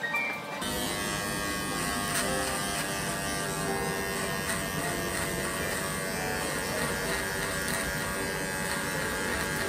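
Electric hair clipper buzzing steadily as it cuts hair over a comb at the side of the head, starting about half a second in.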